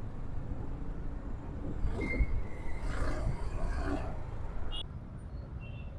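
Bajaj Pulsar 220F single-cylinder motorcycle riding through traffic, a steady low rumble of engine and wind on the rider's microphone, with faint traffic sounds in the middle.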